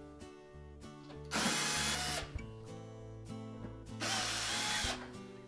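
Power drill-driver backing screws out of an oven's sheet-metal back panel in two short runs of about a second each, about a second in and about four seconds in, each spinning up and winding down.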